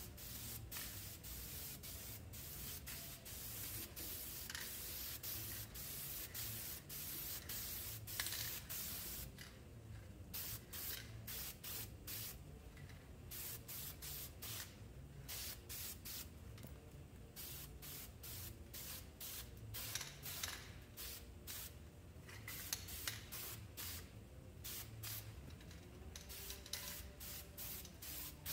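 Aerosol spray paint can hissing in many separate spurts, some brief and some held for a second or two, as paint is sprayed onto bare metal in repeated passes.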